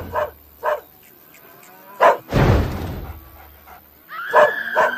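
Cartoon dog yapping in short barks, then whining with a high held tone near the end. A loud rushing burst of noise cuts in about two seconds in and fades over about a second.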